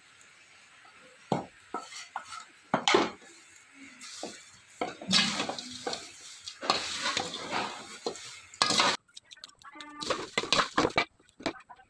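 Slotted steel spatula tossing and scraping dry chiwda around a large aluminium pan: scattered clicks at first, then a few seconds of continuous scraping and rustling of the rice flakes, with metal clinking on the pan. Sparser clicks follow near the end.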